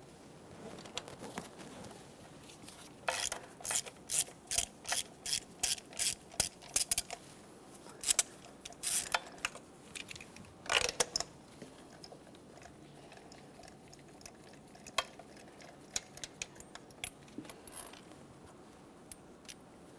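Ratchet clicking in a steady run of about two to three clicks a second as it backs a spark plug out counterclockwise, followed by a few louder metal clatters and scattered single clicks from the socket and extension.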